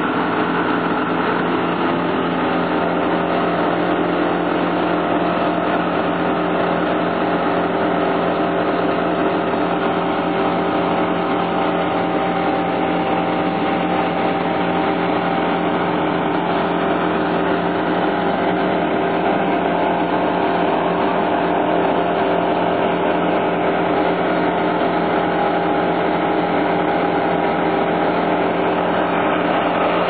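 Wood chipper's engine running steadily at a constant speed.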